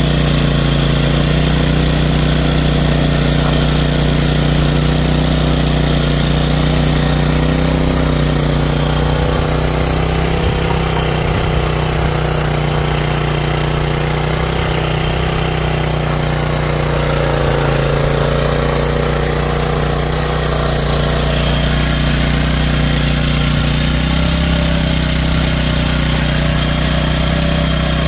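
Pubert Nano mini tiller's small petrol engine running steadily under load as its rotating tines churn through dry soil, the engine note wavering slightly a little past the middle.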